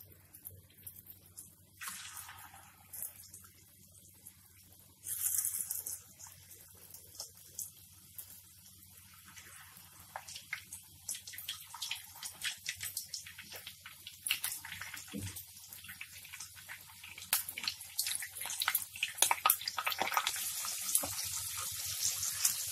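Batter-coated marinated prawns frying in hot oil in a pan: a sizzling burst about five seconds in (a smaller one near two seconds) as prawns go into the oil, then crackling that grows more frequent and turns into a steady, louder sizzle over the last few seconds as the pan fills.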